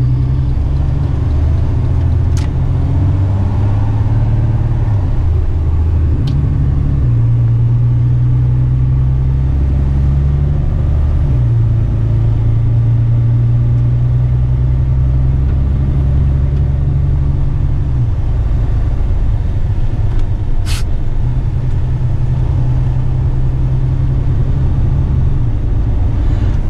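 Western Star truck's diesel engine running under way, heard inside the cab as a steady low drone whose pitch steps up and down several times as the engine speed changes. A few sharp clicks sound over it, the loudest about three-quarters of the way through.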